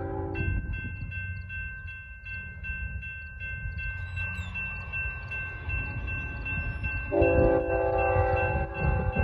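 Railroad crossing bell starts ringing about half a second in as the crossing activates, and rings steadily on. Over a low rumble, the approaching freight's lead locomotive, a GE ES44C4, sounds its horn: the horn cuts off just as the bell begins and blows again, louder, about seven seconds in.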